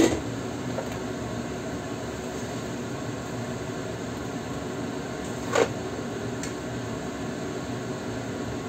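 Steady fan-like whir of kitchen appliances, with a metal clank at the start as the stainless pan's lid is set down and a lighter clink of metal on the pan about five and a half seconds in.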